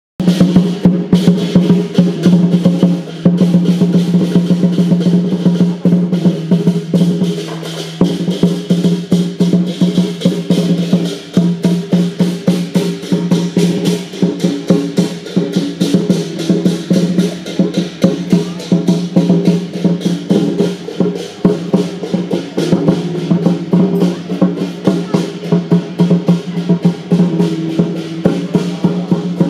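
Lion dance percussion: fast, continuous drum and cymbal beating, with a held melodic line underneath that changes note now and then.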